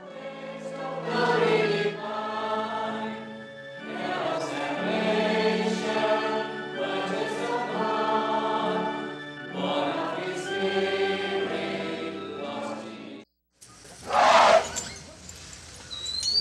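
Choir singing a hymn, several voices in held notes, which stops about thirteen seconds in. Near the end an elephant trumpets loudly.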